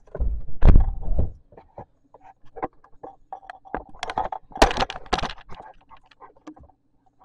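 Handling noise from a dash camera being repositioned on its mount: heavy bumps against the microphone about a second in, then scattered clicks and a burst of scraping and rustling around four to five seconds in.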